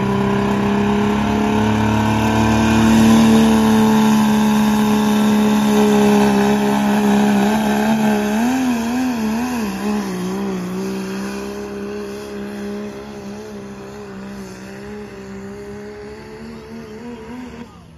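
Super modified four-wheel-drive pulling tractor's engine running at high, steady revs under full load as it pulls the sled, fading as it moves away down the track. About eight seconds in, the revs waver up and down for a couple of seconds before settling again.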